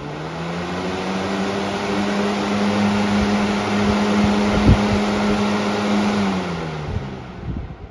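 Air King 20-inch box fan running on high: the motor hum and rush of air build up as it comes up to speed, hold steady, then fall away in the last second or so as it is switched off and spins down. A low thump about halfway through.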